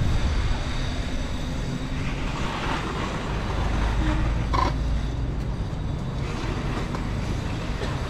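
Steady low rumble and road noise of a small vehicle moving slowly along a paved lane, with one short click about halfway through.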